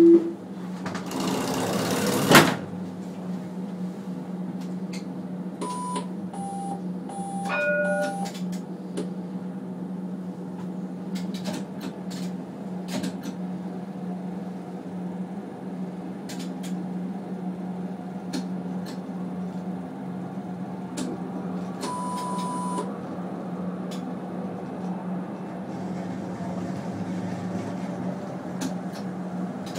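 Brest tram's interior sound as it moves off and runs along the track: a rush of air ending in a sharp knock near the start, then a steady electric hum with scattered light clicks. A short run of electronic beeps at different pitches comes about a quarter of the way in, and a single beep about three-quarters in.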